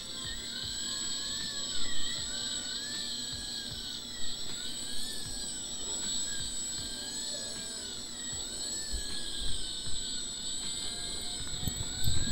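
Motorized handpiece turning an orthodontic anchor screw into the upper jaw's gum and bone, running with a steady high whine and a fainter tone that rises and falls about once a second.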